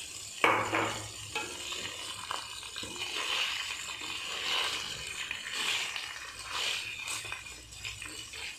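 Country-chicken pieces sizzling in hot oil in a nonstick kadai while a perforated spatula stirs and turns them, scraping against the pan, with a sharp knock about half a second in.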